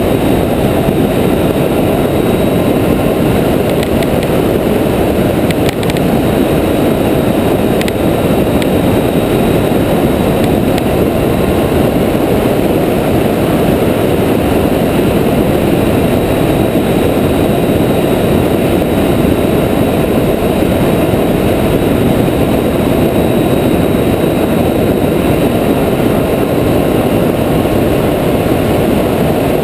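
Triumph Tiger 800 XCa motorcycle riding steadily along a gravel road: a loud, even rush of wind on the camera microphone mixed with engine and tyre noise, with no change in speed. A few faint ticks sound between about four and eight seconds in.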